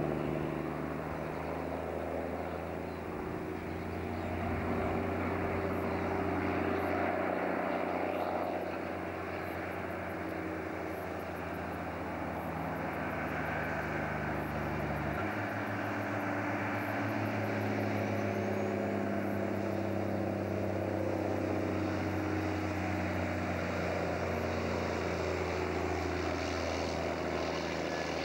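Heavy loaded logging truck's diesel engine running under load, a steady low drone whose note changes abruptly about halfway through, as with a gear change.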